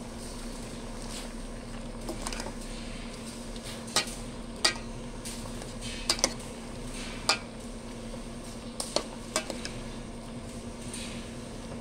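Metal ladle stirring vegetables in a stainless-steel cooking pot, clinking sharply against the pot about eight times, over a steady low hum.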